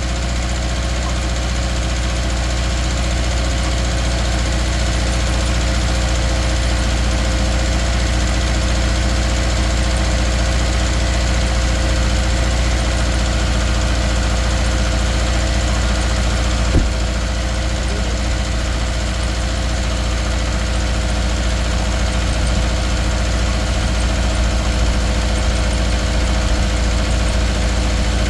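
2013 Subaru Outback's 2.5-litre flat-four engine idling steadily with a misfire on cylinder 3. One brief click about 17 seconds in.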